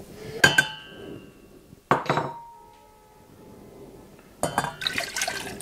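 Glass measuring jug knocking against a stainless steel pot: two ringing clinks about a second and a half apart, then more clattering near the end.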